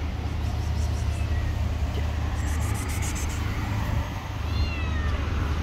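A tabby cat meows once, a short call falling in pitch, about three-quarters of the way in, over a steady low rumble.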